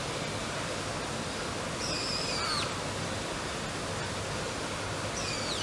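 Steady rushing outdoor background noise, with two short, high whistled calls that slide downward in pitch, about two seconds in and again about five seconds in.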